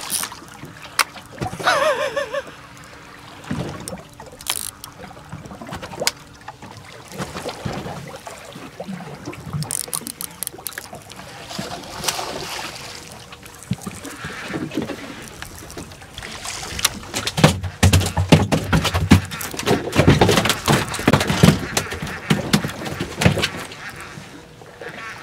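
Irregular clicks, knocks and water splashing as a hooked dorado is fought on rod and reel from a boat; the clatter gets denser and louder in the last third.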